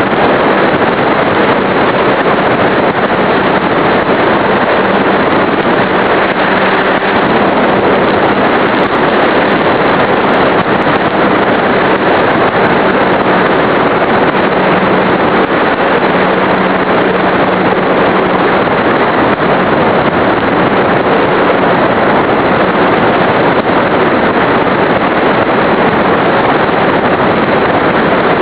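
Steady rush of wind and propeller noise on the microphone of a camera riding on an RC model airplane in flight, with a faint steady hum from its E-flite Power 25 brushless electric motor.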